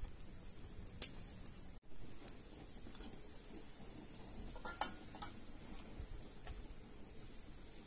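Crockery and utensils being handled, giving a few sharp clinks and clicks, the loudest about a second in. Faint high chirps recur every couple of seconds in the background.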